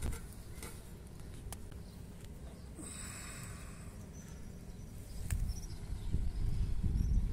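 Outdoor ambience of a cattle pen: a low, uneven rumble on the microphone that grows louder near the end, with a few faint clicks and a short hiss about three seconds in.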